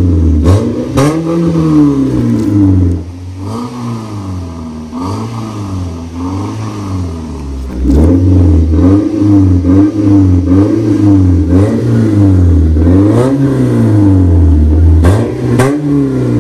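Ford Focus 2.0-litre four-cylinder engine revved repeatedly in quick blips while parked, heard through a tuned exhaust with a vacuum valve. It is subdued for a few seconds, then about halfway through the valve is opened and the exhaust turns much louder and more open. A few sharp cracks come through along the way.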